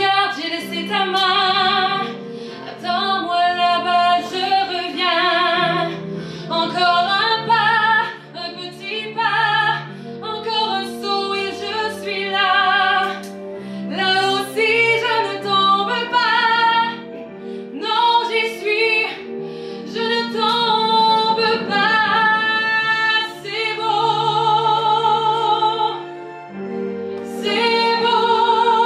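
A woman sings a song through a handheld microphone, holding long notes with vibrato over a steady instrumental accompaniment.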